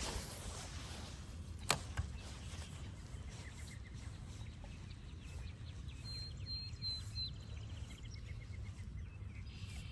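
Outdoor ambience with a steady low rumble. A sharp click comes just under two seconds in, followed by a softer one, and faint bird chirps and trills follow in the second half.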